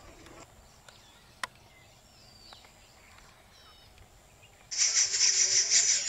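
A few faint high bird chirps over a quiet background, then, about two-thirds of the way in, a loud, fast-pulsing high buzz starts abruptly.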